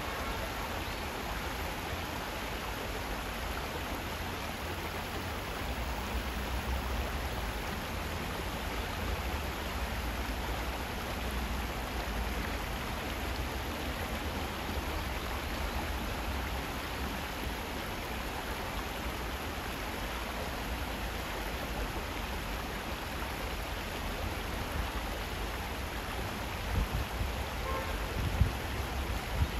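Shallow stream running over rocks, a steady rushing of water, with a few low thumps near the end.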